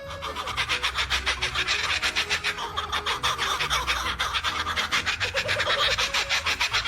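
Fast, even rasping or scratching strokes, about seven a second, over a steady low rumble.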